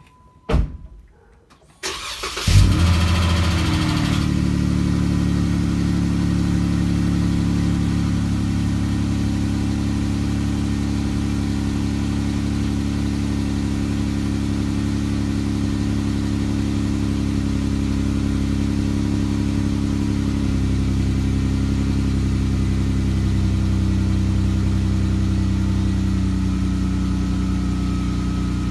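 Jeep Wrangler JK's 3.6-litre Pentastar V6 cold-started through its Penzl exhaust. Two clicks, a brief crank, and the engine catches with a short loud flare about two and a half seconds in. It then settles into a steady idle, whose note shifts slightly about twenty seconds in.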